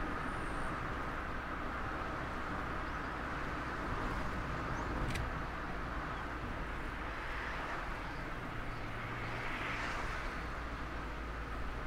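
Mazda ND Roadster on the move: steady road and wind noise with a low engine hum underneath.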